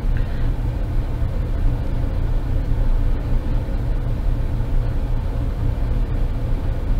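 Steady low rumble of running machinery in the background, with a few faint ticks as the brass actuator head is screwed onto the valve.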